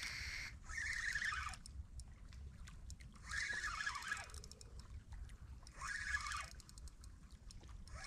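An animal calling over and over, about every two and a half seconds; each call is about a second long and falls in pitch at its end.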